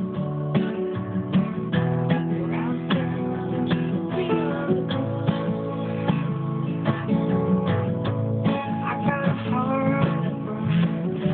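Acoustic guitars play an instrumental passage, a steady strummed rhythm under a picked lead line that slides between notes in places.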